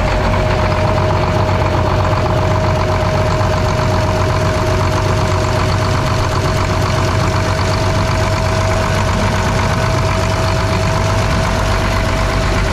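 Cat D6B bulldozer's diesel engine idling steadily, with a steady high whine held over the engine sound.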